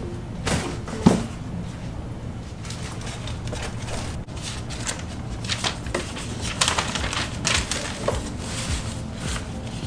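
Knocks and clicks of a plastic computer monitor and its stand being handled and set on a desk. The sharpest knock comes about a second in, with a run of lighter clicks and rustling from about five to nine seconds in, over a steady low hum.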